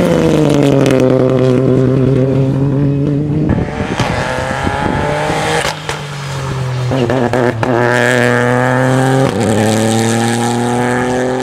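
Rally car engine running hard, its pitch falling over the first few seconds, then stepping up and down with short breaks at each gear change.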